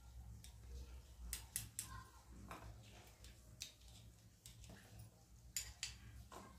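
A steel spoon tapping and scraping against a small steel bowl as pistachios are spooned out and dropped into a steel mixer-grinder jar: a scatter of light clicks, faint, over a low hum.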